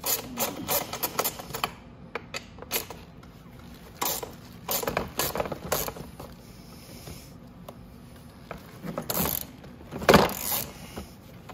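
Ratchet wrench with a 13 mm socket clicking in short bursts as stiff frame bolts are worked loose, with a louder knock about ten seconds in.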